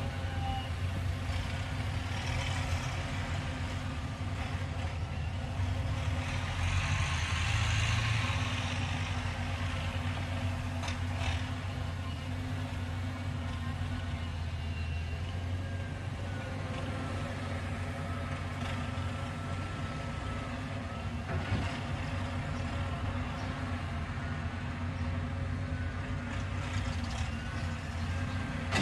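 Caterpillar hydraulic excavator's diesel engine running steadily under load while it digs, with a thin hydraulic whine at times and a brief louder swell about seven seconds in.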